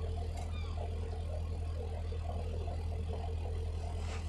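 Yacht's inboard engine running steadily under way, a low even hum.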